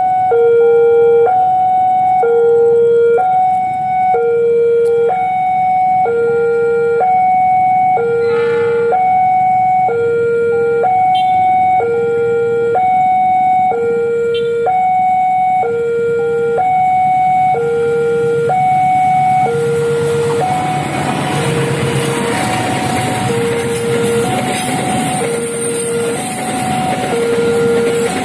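Railway level-crossing warning alarm sounding a steady alternating high-low two-tone, about one cycle a second, with a short horn blast about eight seconds in. From about twenty seconds in, the rumble and rail noise of a passing freight train rise over the alarm. The train is hauled by a CC 206 diesel-electric locomotive and is made up of empty cement wagons.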